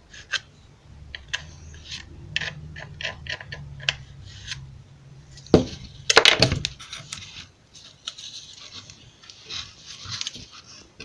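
Wooden pieces of a log bandsaw box being handled on a workbench: scattered light knocks and clicks, a louder knock and clatter about six seconds in, then scraping and rubbing near the end. A low steady hum sounds underneath until about halfway through.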